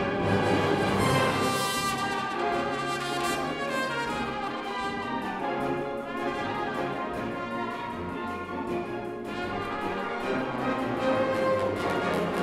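Full wind orchestra playing a sustained passage of a concert-band piece, brass to the fore, easing off in the middle and growing louder again near the end.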